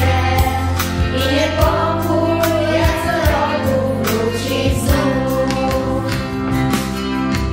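Girls' choir singing a Polish Christmas song in unison over a backing accompaniment with sustained bass notes and a steady beat.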